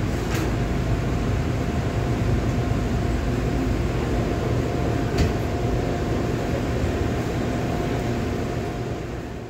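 Steady drone of a car ferry's engines heard from the open deck, mixed with a rush of wind and water and a faint steady whine; it fades out near the end.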